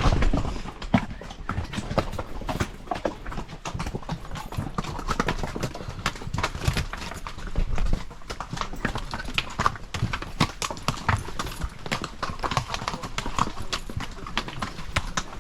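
Horses' hooves clip-clopping at a walk along a trail: a dense, uneven run of sharp hoof strikes.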